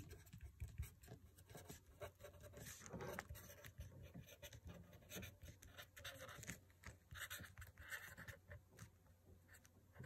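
Faint scratching of a pen writing on lined paper, in many short strokes as words are written out by hand.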